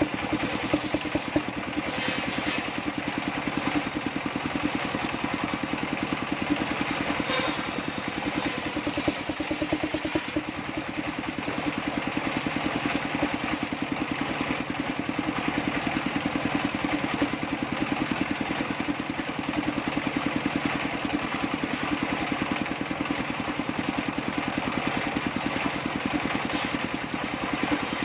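Engine-driven circular saw table (sawmill) running steadily, with a rapid, even engine pulse.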